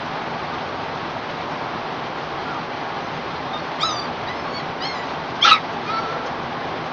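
A dog whimpering and yelping: a few short high cries in the second half, the loudest about five and a half seconds in, over a steady background hiss.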